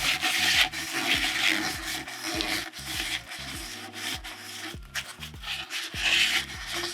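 Rubbing and wiping around the outside edge of a mountain-bike fork seal to clean it before fitting, a rasping scrub that is loudest in the first couple of seconds and again near the end.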